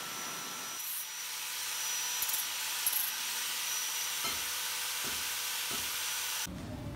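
Angle grinder with a sanding disc running against steel square tubing, a steady high hiss as it smooths the metal. The sound changes abruptly near the end.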